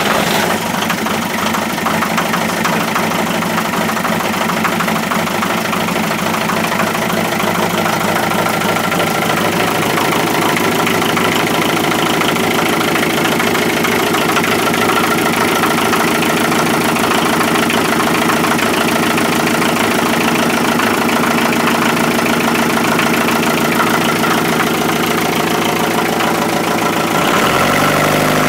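Inboard marine diesel engine idling steadily just after being started. Near the end its speed rises a little and holds at a higher note.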